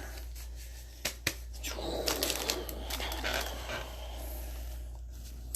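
A trading card pack being handled: wrapper rustling and crinkling with small clicks and taps, loudest in the middle, over a steady low electrical hum.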